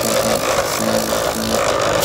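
Compressor nebulizer running, a steady mechanical buzz from its motor and pump. It is a bit noisy because the case screws are still out.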